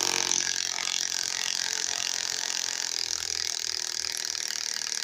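Flex 1451 mid-torque impact wrench hammering steadily as it backs out an 8-inch lag screw.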